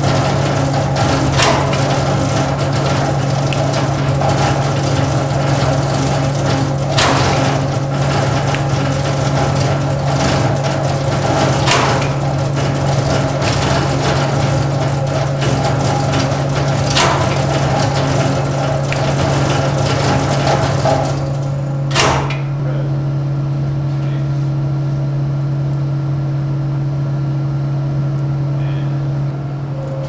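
Seismic shake table running with a transfer switch cabinet mounted on it: a steady low machinery hum under a continuous shaking rattle, with sharp clacks every few seconds. About three-quarters of the way through, a loud clack comes as the shaking noise stops, leaving only the steady hum of the test rig.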